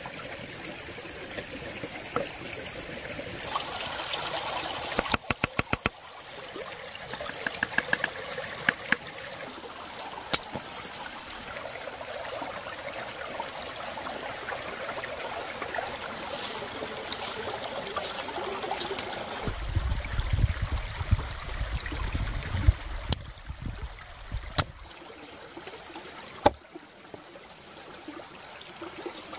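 Shallow rocky stream trickling steadily over stones, with occasional clicks and knocks from hands-on food preparation: a quick run of about a dozen even clicks around five seconds in, a low rumble for several seconds past the middle, and a few single sharp knocks, one late on as a cleaver works on a fish fillet on a wooden board.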